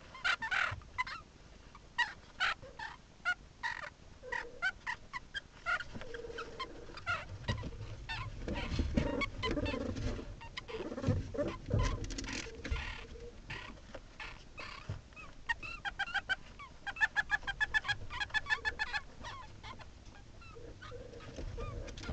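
Meerkat pups calling with short, high peeps and chirps, with a quick run of calls, about four to five a second, in the last third. In the middle come rustling and bumps as the pups move about on a blanket in a plastic tub.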